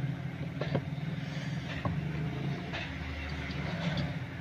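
A few light metallic clicks and knocks from a tool working loose the drive pulley on the underside of an upturned washing machine, over a steady low hum.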